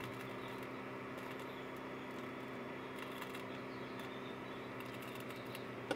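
Wendsim chick incubator running with its egg turner rotating: a steady, faint electric hum of several even tones.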